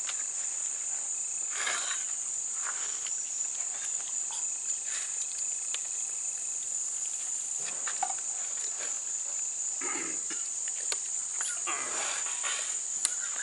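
Steady, high-pitched insect chorus: a continuous shrill trill that holds at one pitch throughout, with a few faint mumbles from people now and then.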